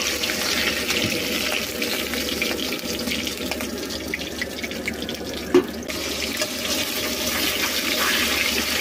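Pieces of tengra fish sizzling steadily in hot oil in a kadhai, with a single clink of the metal spatula against the pan about halfway through.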